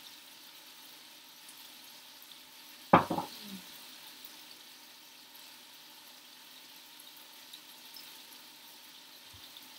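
Chicken thighs sizzling steadily as they brown in a skillet. One sharp knock comes about three seconds in.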